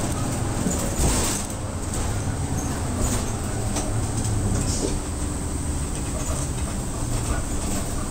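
Route bus heard from inside the cabin, its engine and drivetrain running with road noise as it slows and pulls in to a stop. A short burst of noise about a second in and a few light rattles or clicks.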